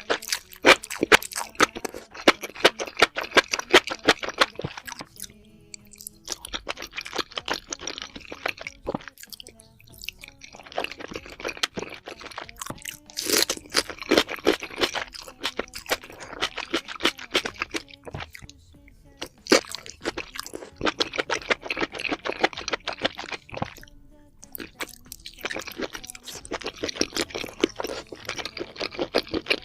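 Close-miked chewing and crunching of spicy pork head: rapid crisp crunches in bouts of several seconds, with short pauses between mouthfuls.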